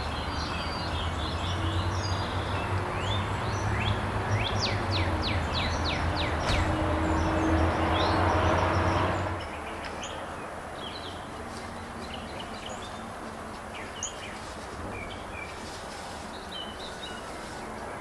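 Wild birds chirping, with a quick run of sharp falling chirps, over a steady low engine hum that grows louder and cuts off about nine seconds in. After that, only scattered bird chirps remain over a quiet background.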